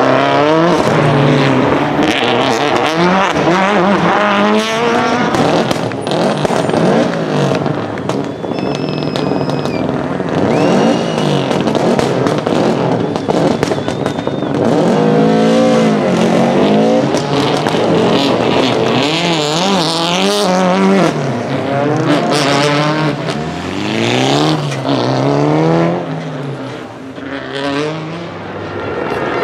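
Turbocharged four-cylinder World Rally Car engines, led by Subaru Impreza WRCs, revving hard as the cars slide through the turns. The pitch rises and falls sharply again and again with throttle and gear changes, with sharp cracks along the way.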